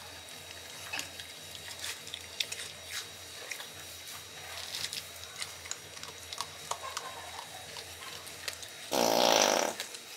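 Asian palm civet crunching dry cat-food kibble from a plastic bowl: irregular small crunches and clicks throughout. About nine seconds in, a brief loud pitched call lasts under a second.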